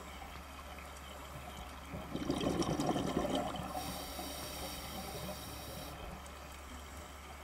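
Scuba diver breathing through a regulator, heard underwater through the camera housing: a gurgling rush of exhaled bubbles about two seconds in, then a fainter hiss of the next breath drawn through the regulator.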